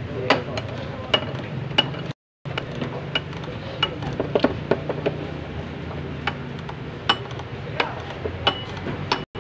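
Hand ratchet wrench working a bolt on the engine's timing cover: irregular sharp metallic clicks and clinks, a few at a time, as the wrench is swung and reset.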